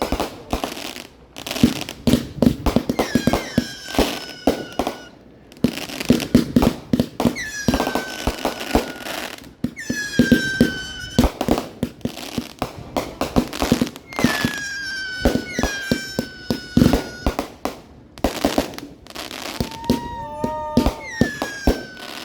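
Aerial fireworks going off close by: a dense run of bangs and crackling. About eight times, a shell's whistle slides down in pitch over about a second.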